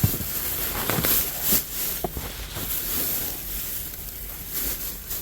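Rummaging through dumpster trash: scattered rustles and light knocks of bags and items being handled, over a steady hiss.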